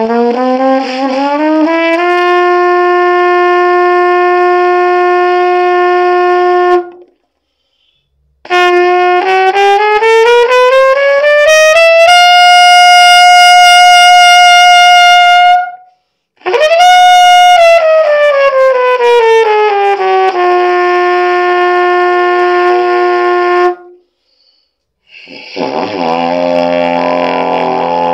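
Trumpet playing long-tone and chromatic practice: a stepwise chromatic climb to a held middle G, a breath, a chromatic climb up an octave to a long high G, and a breath. It then steps chromatically back down to a held middle G. Near the end, after another breath, it drops to a much lower pedal note.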